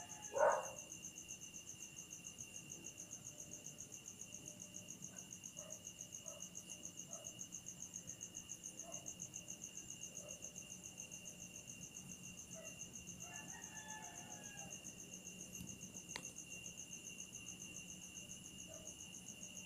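Night insects trilling steadily in a continuous high, rapidly pulsing chorus. A brief louder call sounds about half a second in, with a sharp click about 16 seconds in.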